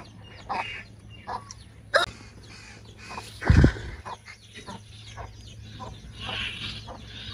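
Chickens clucking on and off, with light taps and clicks as food is handled on a tray. A dull low thump a little past halfway is the loudest sound.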